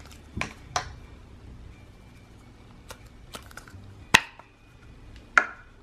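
About seven light, sharp plastic clicks and taps as Play-Doh is worked out of its plastic tub and handled, the sharpest about four seconds in.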